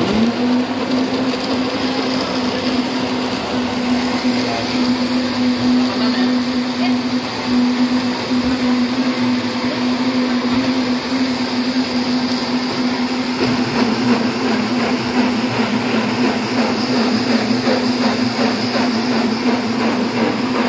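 Electric blender motor spinning up at the start, then running at a steady pitch while it blends fruit into juice.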